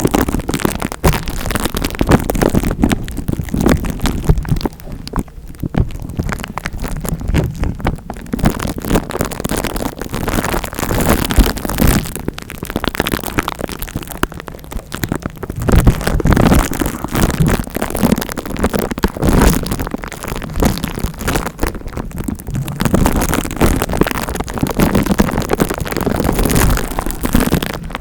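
Close-miked scratching and rubbing on the microphone, an ASMR scalp-massage trigger: a dense crackle that swells and eases every few seconds.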